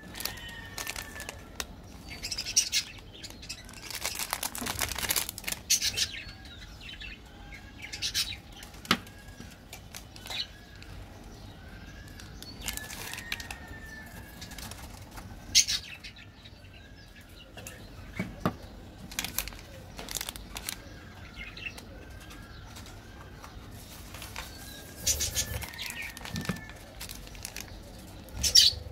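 Plastic candy-bar wrappers crinkling and tearing open in bursts as hands handle and unwrap them. A bird chirps repeatedly in the background.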